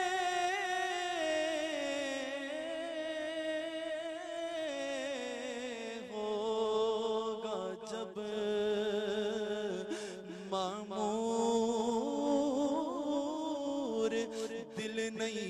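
A male voice singing a naat a cappella, drawing out long wavering notes without clear words. The pitch slides slowly down over the first few seconds and then holds on lower notes.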